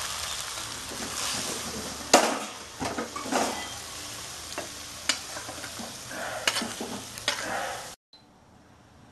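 Chilli paneer sizzling in a non-stick kadai, then a loud knock about two seconds in as the pan is lifted off the gas burner, followed by a spatula scraping and clicking against the pan as the paneer is spooned out into a bowl over a fainter sizzle. The sound cuts off suddenly near the end.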